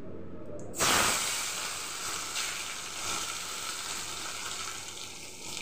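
Chopped tomatoes hitting hot oil in a karahi, setting off a sudden loud sizzle about a second in that slowly eases into a steady frying hiss.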